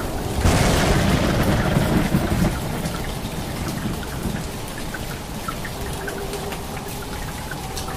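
Steady rainfall with a rumble of thunder that breaks about half a second in and dies away over the next three seconds, leaving the even hiss of rain and scattered drips.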